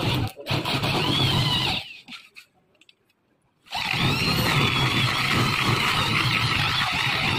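Corded electric drill with a hole saw cutting into a wooden board: it runs with a high whine for about two seconds, stops for about two seconds, then starts again and keeps cutting.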